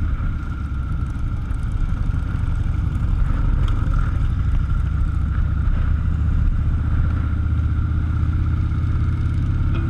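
Motorcycle engine running at a steady speed, a continuous low drone.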